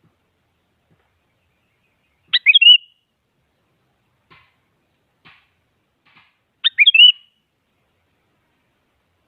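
Sooty-headed bulbul (kutilang) singing two short, quick phrases about four seconds apart, with a few faint ticks between them.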